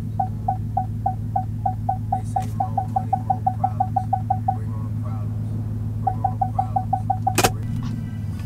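Pickup truck's parking-sensor beeps warning of a car close behind while manoeuvring out of a tight parallel-parking spot. The short high beep repeats about four times a second, speeds up to about six a second, stops briefly, then resumes fast. A steady low engine hum runs underneath, and a single sharp click comes near the end.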